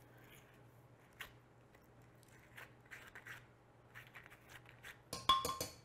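Spoon scraping ripe avocado flesh out of its skin into a blender jar: scattered faint scrapes, then a short clatter with a brief ring near the end, the loudest moment, as the spoon knocks against the jar.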